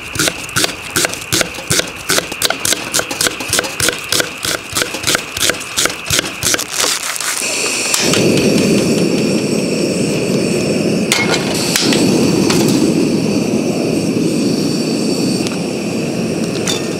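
A spatula knocking against a frying pan while stir-frying rice, in quick even strokes about three times a second. About eight seconds in, a steady loud rushing noise sets in, with a few clinks on top.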